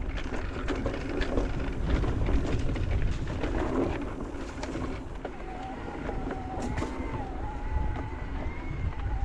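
Electric mountain bike riding over a dirt trail: tyres rumbling, with the chain and frame rattling and clicking over bumps. From about five seconds in, the mid-drive motor's whine wavers in pitch as the rider pedals.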